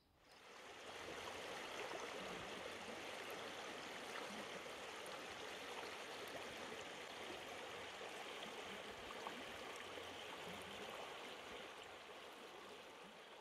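Water of a stream rushing steadily over stones, fading in during the first second and slowly fading out near the end.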